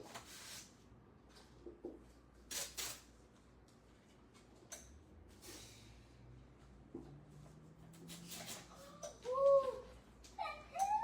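A pet animal's short rising-and-falling calls, twice near the end. A few brief rustles come earlier.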